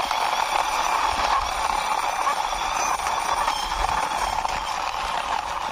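Hard plastic wheels of a toy motorbike rolling along a rough concrete wall top, a steady rolling noise.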